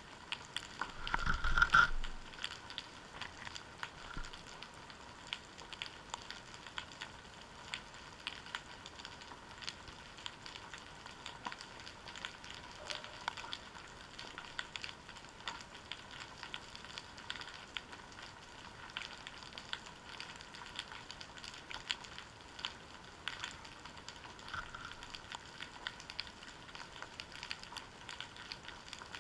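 Underwater sound through a GoPro Hero 3's waterproof housing resting on the seabed: a steady crackle of many tiny clicks. About a second in comes a much louder, deeper rumbling bump as something knocks against the housing.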